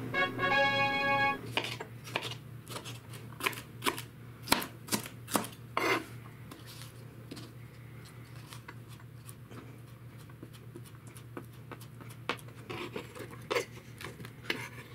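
Kitchen knife chopping tomatoes and an orange pepper on a cutting board: irregular sharp knocks, loudest in the first few seconds, then lighter taps. A brief chime-like synthesized sound effect opens it.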